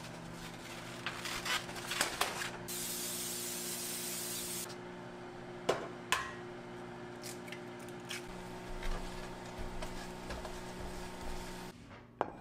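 Cooking spray hissing into a frying pan for about two seconds, followed a second later by two sharp cracks of an egg being broken on the pan's edge, over a steady low hum.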